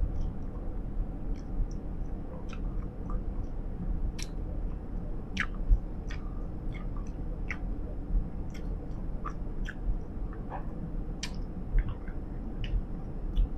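Bubble gum chewed close to a clip-on microphone: irregular wet smacks and clicks of the mouth, over a steady low rumble of the moving vehicle.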